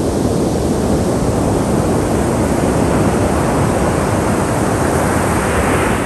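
Ocean surf breaking and washing up over a coarse pebble beach, a steady loud rush. The hiss swells brighter over the last few seconds as a wave runs up the shore.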